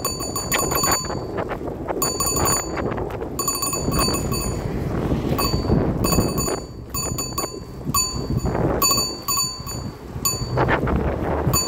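A bicycle being ridden, with steady wind and road rumble under repeated bursts of rapid metallic ticking that rings at fixed high pitches. The ticking stops and starts every second or so.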